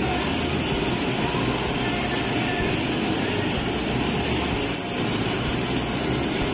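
Steady drone of commercial kitchen machinery, with one short sharp click about five seconds in.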